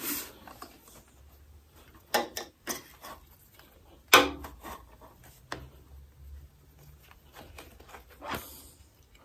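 Hand-handling noises as a motorcycle stator's wiring lead and plug are fed back through the frame: soft rubbing with a few sharp knocks of cable and parts against metal, the loudest about four seconds in.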